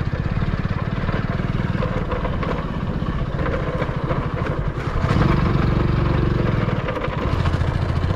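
Small vehicle engine running steadily as it drives slowly over a muddy, rutted dirt track. It takes more throttle and grows louder about five seconds in, then eases back near the end.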